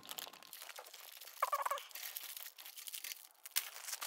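Plastic packaging wrap rustling and crinkling as packed parts are handled, with a brief high squeak about a second and a half in.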